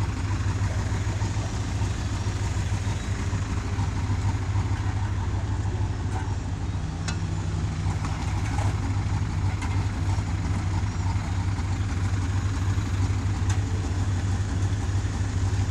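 A vehicle engine idling steadily with a low, even hum. A few faint knocks come through now and then.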